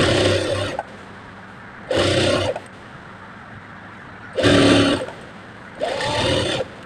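Sewing machine running in four short bursts of stitching, each under a second and about one to two seconds apart.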